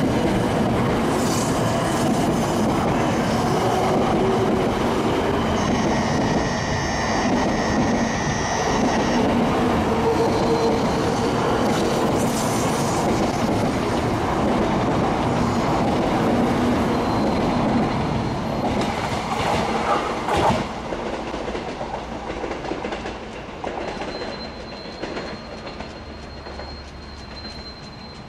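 700 series Shinkansen train pulling out past the platform, its cars rumbling and clattering by. Over the last several seconds the sound fades away as the end of the train passes, with one sharp click about 20 seconds in.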